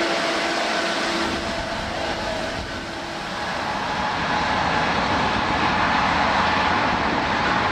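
Twin jet engines of a Boeing 777-200 running at high power as the airliner rolls on the runway: a loud, steady rushing noise with faint steady whine tones in it. The level dips briefly about three seconds in, then builds again.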